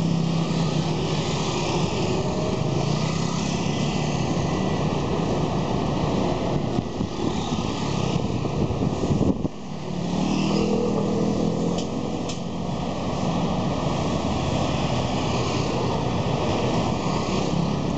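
Street traffic with bus and scooter engines running, a steady drone. About halfway the sound drops briefly, then a new engine note picks up and rises slightly.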